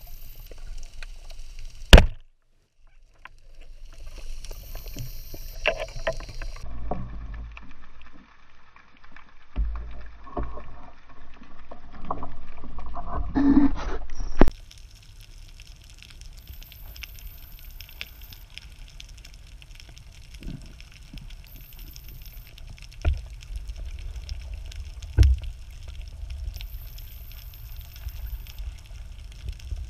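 Underwater sound through an action camera's waterproof housing: a low rush of water movement with faint crackling. It is broken by sharp knocks, a loud one about two seconds in and a few more in the second half, and there is a louder spell of rubbing and knocking shortly before the middle.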